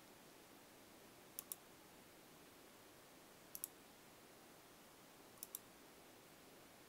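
Computer mouse button clicked in three quick double clicks, about two seconds apart, over a faint steady hiss.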